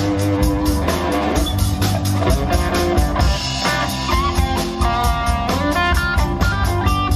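A live rock band playing: guitar lines over a steady drum-kit beat, heard through the PA.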